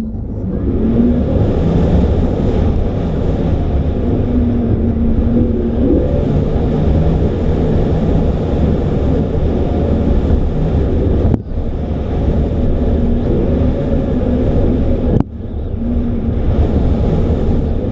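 An RC plane's motor and propeller running in flight, heard from on board with heavy wind rush over the microphone. The motor's pitch steps up and down with the throttle, and the sound cuts out briefly twice, about 11 and 15 seconds in.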